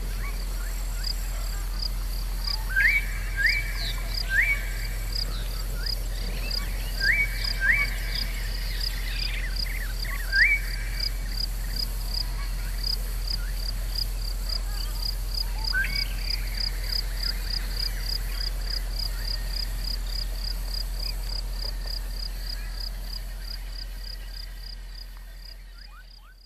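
Evening nature ambience: an insect chirping steadily about three times a second, with a few short rising calls at intervals over a steady low hum. It all fades out near the end.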